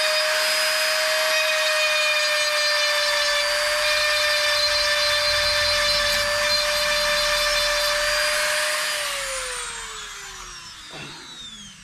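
Handheld rotary tool with a pink grinding stone running at a steady pitch as it grinds the inside of a white PVC pipe fitting. About nine seconds in it is switched off, and its pitch falls as it spins down.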